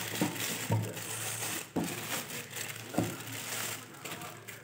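Bubble wrap and plastic wrapping crinkling and rustling as it is pulled off by hand, with a few sharp clicks among the rustle.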